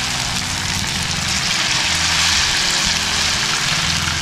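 Batter-coated snakehead fish fritters deep-frying in a pan of hot oil: a steady, loud sizzle, with a low hum underneath.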